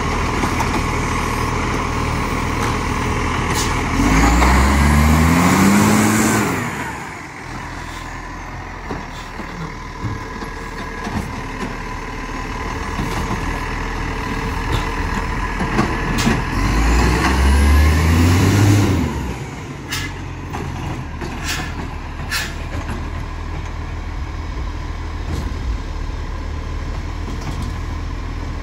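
Iveco Acco side-loader garbage truck's diesel engine running steadily, revving up twice for a few seconds each as the hydraulic lifting arm is powered, with a few short clatters about two-thirds of the way through.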